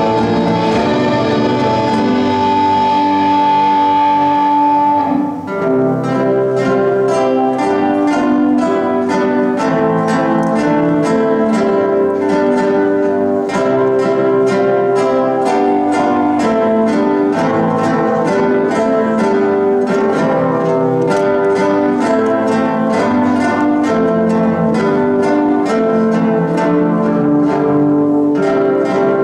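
Ensemble of nylon-string classical guitars with electric bass playing. Sustained chords for about five seconds, then a brief dip and a run of quick, evenly picked notes.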